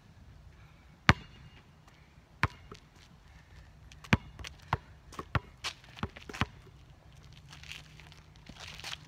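A basketball bouncing on asphalt: two single bounces over the first few seconds, then a quicker run of about six dribbles, with shoes scuffing on the court near the end.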